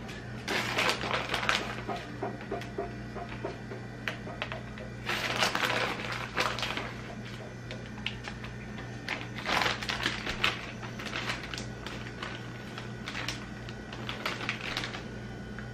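Crinkling and irregular light clicks in several short bursts as shredded cheese is handled and sprinkled over fried taquitos on a paper plate.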